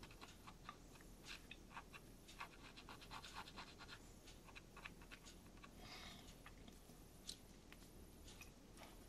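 Near silence, with faint scattered ticks and light scratching from small handling: a fine superglue applicator being touched into the joints of a laser-cut wooden wagon frame.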